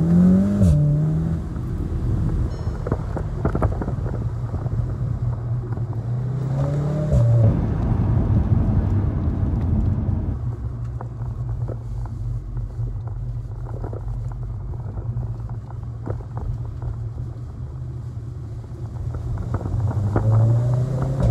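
VW Golf R's turbocharged four-cylinder engine and resonator-delete exhaust heard from inside the cabin under acceleration. The engine note climbs and drops sharply at quick DSG upshifts, about a second in and again around seven seconds, then settles into a steady low drone while cruising and starts climbing again near the end.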